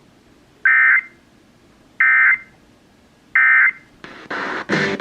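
Three short bursts of Emergency Alert System SAME data tones, each about a third of a second long and spaced about a second and a third apart: the end-of-message signal that closes a broadcast weather alert. Near the end, a stretch of crackly radio noise starts.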